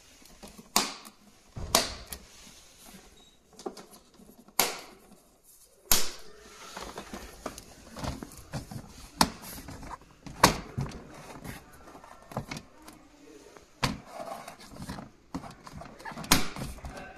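Hard plastic panels of a stackable storage bin being handled and snapped together: irregular sharp clicks and knocks, a second or a few apart, with quieter plastic handling noise between them.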